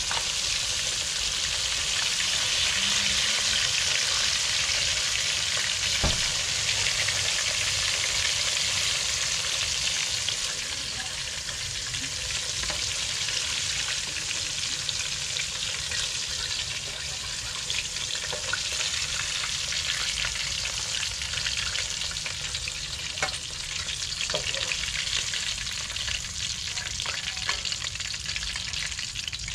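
Pieces of red snapper frying in hot oil, a steady sizzle that eases slightly after about ten seconds, with a few sharp clicks.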